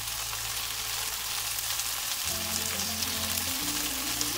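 Hot oil sizzling in a pan as king oyster mushrooms stir-fry.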